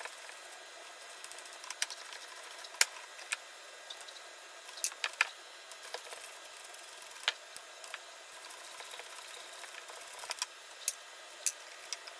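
Scattered, irregular metallic clicks and taps of hand tools working the bolts of a snowmobile chain case cover, over a faint steady hiss.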